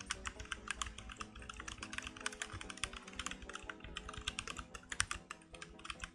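Typing on a Keychron K2 V2 mechanical keyboard with Gateron Brown switches: a quick, irregular run of key clicks, several a second. Faint background music runs underneath.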